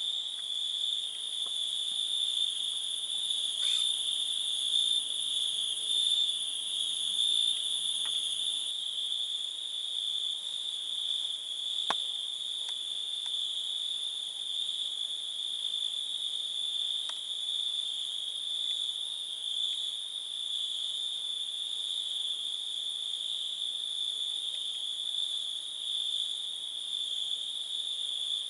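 A steady night chorus of crickets and other insects, one continuous high trill with a thinner, higher insect sound above it. The highest part drops out about nine seconds in, and there is a single click about twelve seconds in.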